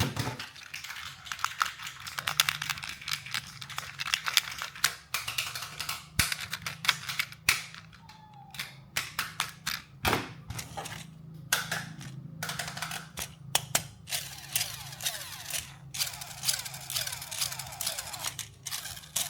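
Toy packaging being handled and opened: rapid, irregular crackling and crinkling of plastic and cardboard with many sharp clicks and snaps, over a faint steady low hum.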